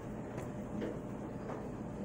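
Cloth kitchen towels being handled, a few faint soft brushes of fabric over a steady low background hum.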